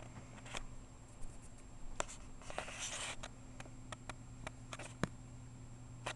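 Bengal cat's claws scratching and catching on carpet and a fabric toy: scattered small clicks, with a rustling scrape about halfway, over a faint steady hum.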